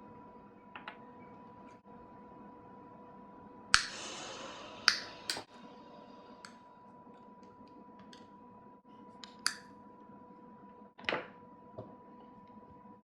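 Sharp clicks and taps of small hard objects being handled, about eight in all, over a steady electrical hum. The loudest click, a little under four seconds in, is followed by a short rush of noise lasting about a second.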